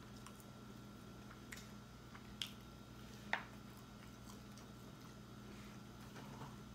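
Faint crackling and a few sharp clicks as a crusty po' boy roll is handled and pulled apart over a plastic plate, the loudest about two and a half and three and a half seconds in, over a steady low hum.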